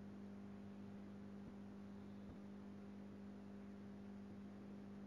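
Faint, steady low electrical hum, mains hum in the recording, over light hiss, with a couple of faint ticks about two seconds in.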